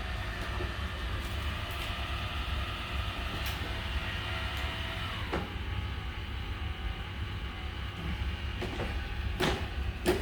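Robot vacuum cleaner running, its motor and brushes giving a steady whirring hum, with a few short knocks in the second half.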